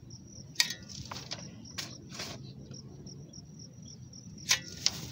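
A cricket chirping steadily in rapid, even pulses, with a few sharp knocks and short scrapes from digging work at the grave hole, the loudest knock about half a second in.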